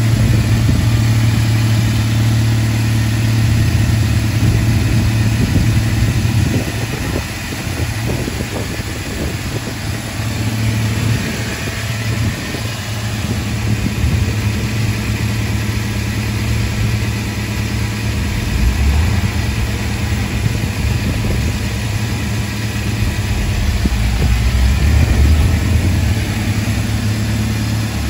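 1999 Toyota Tacoma's 16-valve four-cylinder engine idling steadily.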